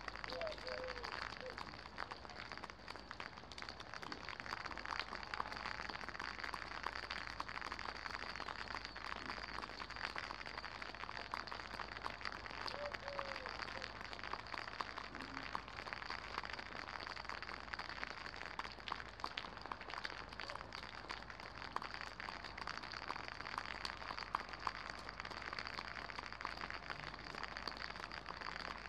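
Rain falling steadily: a dense, even patter of many small drops hitting the ground.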